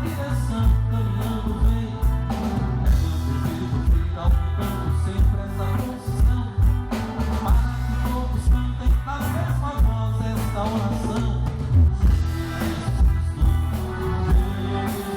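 Live band music with a steady drum beat and a sustained bass line, with a singing voice over it.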